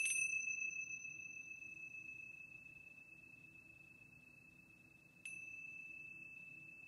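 Tingsha cymbals struck together twice, about five seconds apart, each strike leaving one clear high ringing tone that slowly fades.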